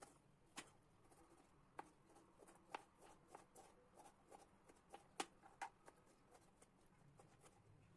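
Faint, irregular taps of a kitchen knife on a plastic cutting board as tomatoes are finely diced, about one or two cuts a second.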